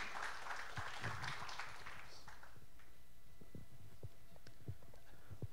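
Audience applause dying away over the first two seconds, followed by a few soft, low thumps.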